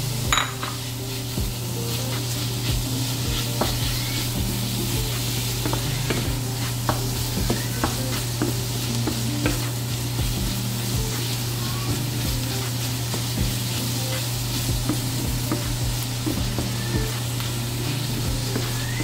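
Ground beef and diced onions sizzling in a hot stainless steel frying pan, with a steady frying hiss. A wooden spatula stirs and breaks up the meat, making scattered scraping and tapping clicks on the pan, with a sharper knock just after the start.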